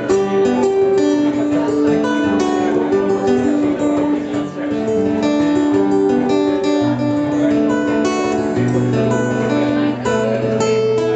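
A live acoustic band playing an instrumental introduction: acoustic guitars strummed steadily, with a melody of long held notes carried over them.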